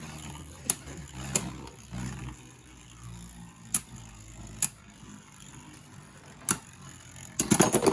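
Beyblade Burst spinning tops clicking sharply as they strike each other or the plastic stadium wall, about five separate hits over a faint low whir, then a rapid clatter near the end.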